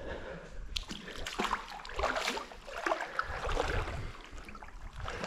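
Water splashing and sloshing in irregular bursts, like small waves washing against a shore.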